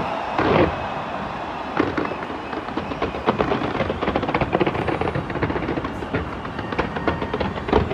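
Large fireworks display going off nonstop: a dense crackle of many rapid bangs and pops, with a louder burst about half a second in.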